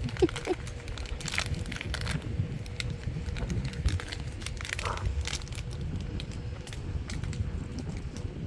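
A dog chewing a socko, a homemade sock chew toy, making a continuous crackling and crinkling with many small irregular clicks.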